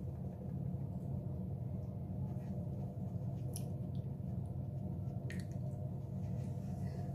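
Faint, soft dabbing of a makeup sponge pressed against the face, with a few light ticks, over a steady low hum in the room.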